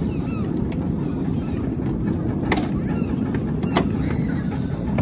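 Miniature live-steam locomotive pulling a ride-on train along the track: a steady low rumble of the running train, with two sharp clicks about halfway through. Waterfowl call in the background.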